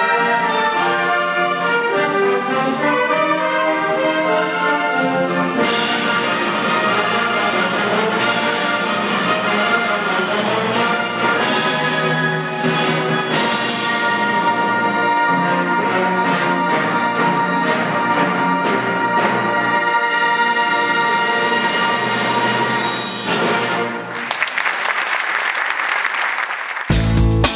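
Symphonic wind band playing a pasodoble, with the brass to the fore. Near the end it cuts to a short electric-guitar jingle.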